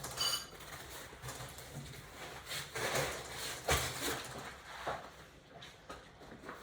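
Scattered knocks and rustling from handling the printer's cardboard packaging, with a short high squeak near the start.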